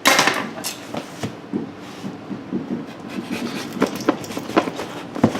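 A cardboard box being wrestled open by hand: a loud scrape at the start, then irregular rubbing and scraping with scattered knocks and clicks.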